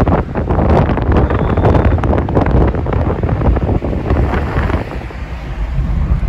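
Wind buffeting the microphone in a moving car at highway speed, over a low rumble of road noise; it eases briefly about five seconds in.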